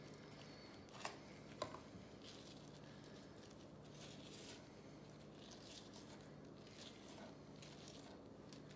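Faint, soft tearing and squishing as hands pull apart and deseed rehydrated dried chili peppers, with two small clicks about half a second apart a little over a second in, over a faint steady low hum.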